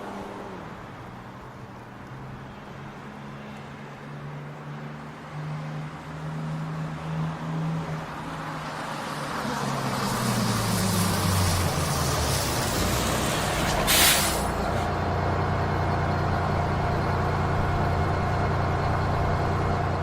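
Bus engine running and getting louder, its pitch sliding down around ten seconds in as it slows. About fourteen seconds in comes a short, sharp hiss of air brakes. The engine then runs on steadily.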